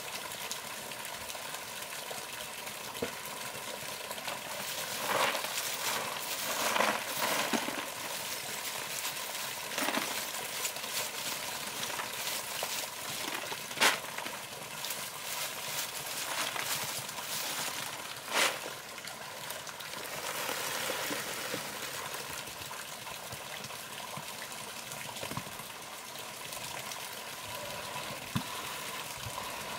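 Lumps of charcoal knocking and clattering as they are handled at a clay furnace: a few sharp knocks, the two loudest in the middle, over a steady rushing hiss.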